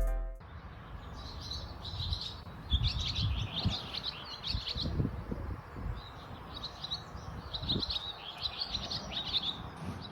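Small songbirds twittering in quick, high chirping runs, in several bursts, over a low rumble with a few soft thumps.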